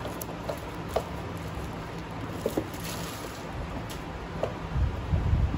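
Plastic packaging crinkling and clicking as it is pulled off and worked out of the box, a string of scattered small crackles, with heavier handling bumps near the end.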